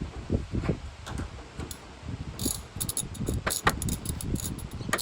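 Adjustable spanner working on a nut of the steering shaft: low knocks and handling noise, then from about two and a half seconds in a run of sharp metallic clicks and clinks.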